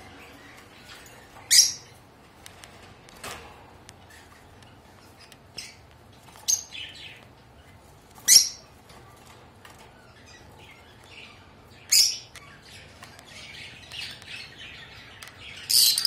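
Rosy-faced lovebirds giving short, shrill, high-pitched calls, about six spaced a few seconds apart, with softer chattering near the end.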